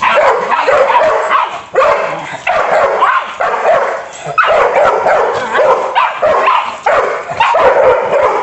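An adult dog and a puppy barking and yipping at each other in a rapid, almost unbroken run of loud barks.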